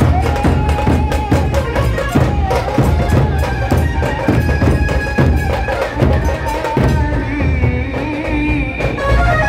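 Loud, dense drumming from a procession drum band: red dhol barrel drums and large frame drums beaten with sticks, a small drum played with thin sticks, and small hand cymbals in a fast, driving rhythm. A long held melody line rides above the drums.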